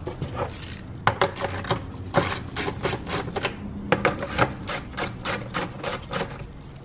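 Ratchet wrench with a 10 mm socket on an extension clicking in quick back-and-forth strokes, about four clicks a second, as it loosens an engine cover bolt.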